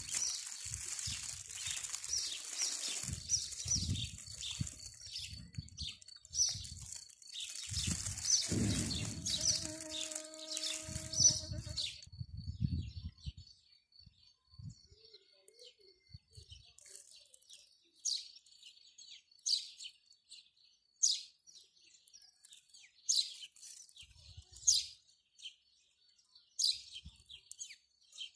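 Small songbirds chirping in short, repeated high calls, clearer in the second half. During roughly the first twelve seconds gusty rumbling noise, such as wind on the microphone, sits under the calls.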